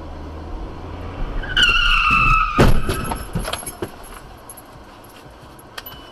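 A car's tires squeal under hard braking for about a second, then a single loud crash of the collision, followed by a brief clatter.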